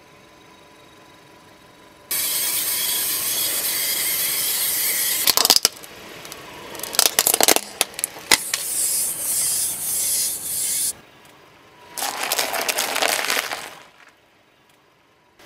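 Car tyre rolling slowly over asphalt, heard close up as a steady gritty rasping that starts suddenly about two seconds in. Around the middle come sharp crackles and cracks as brittle objects are crushed under the tyre, and near the end there is one more short burst of rolling and crunching.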